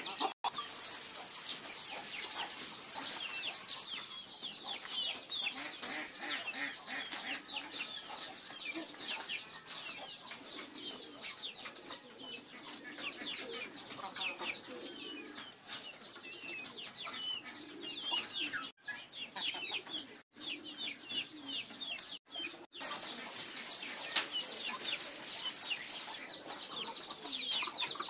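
Many birds chirping: a dense, continuous run of short, high, quickly falling chirps, with occasional low cooing from domestic pigeons. The sound cuts out briefly a few times, about two-thirds of the way in.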